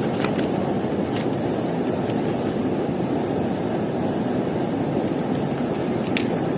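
Steady rushing noise, even and unbroken, with a few faint clicks.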